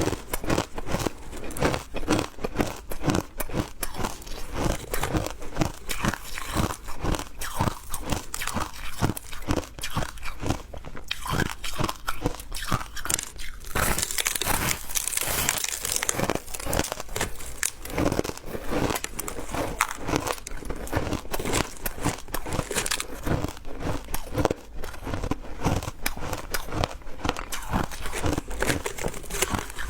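Close-miked biting and chewing of ice: dense, irregular crunches one after another, with a brief higher hiss near the middle.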